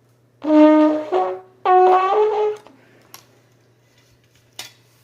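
Trombone played without its mouthpiece, the lips buzzing straight into the leadpipe: two short phrases of a few notes each, changing pitch, followed by a couple of faint clicks.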